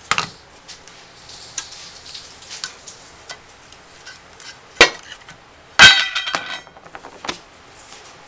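A metal paste-wax tin being handled and opened: small clicks and scrapes, a sharp knock about five seconds in, then the loudest sound about six seconds in, a clatter of the metal lid that rings briefly.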